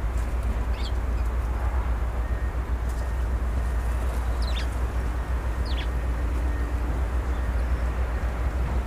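A few short, high bird chirps, each a quick downward sweep, spaced several seconds apart over a steady low rumble.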